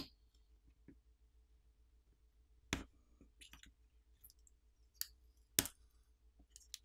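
Tweezers clicking against a smartphone's metal mid-frame while a black adhesive film is peeled off it: a handful of sharp, separate clicks at uneven intervals, the loudest a little past halfway.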